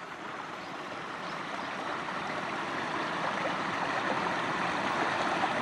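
Mountain spring water pouring from its spout and splashing over rocks into a pool: a steady rush of running water that grows louder throughout.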